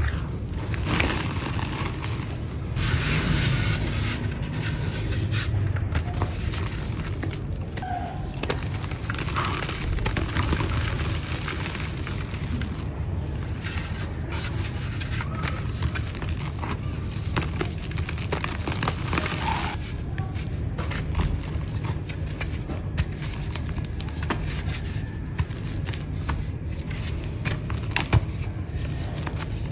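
Lumps of dry yellow mud crumbling and crunching, a dense run of irregular small cracks and gritty crackling with no pause.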